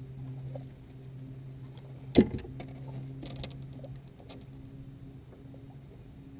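Steady low hum from the bass boat, with one loud, sharp knock against the boat about two seconds in, followed by a few light clicks and rattles.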